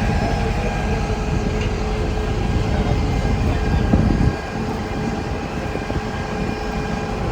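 Steady low rumble of running engines with a few faint steady whining tones above it; the heaviest part of the rumble drops away about four seconds in.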